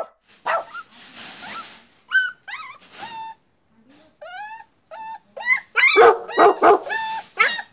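A hungry puppy whining and yelping in a string of short, high-pitched cries. Some cries bend up or down in pitch, and they come faster and louder in the second half.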